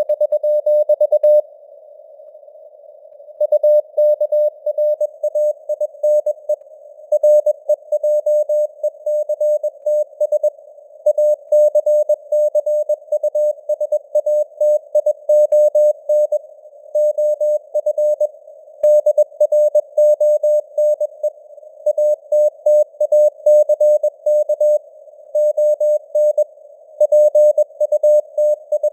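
Morse code (CW) at 21 words per minute: a single mid-pitched tone keyed on and off in dots and dashes, over a narrow band of simulated radio hiss. There is a pause of about two seconds shortly after the start, between words.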